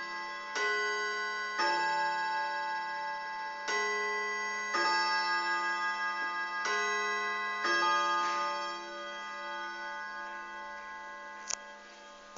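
1927 Mauthe wall clock striking the hour on its gong in two-note ding-dong pairs, each stroke ringing on and overlapping the next. The strikes stop about eight seconds in and the ringing fades, with one sharp click near the end.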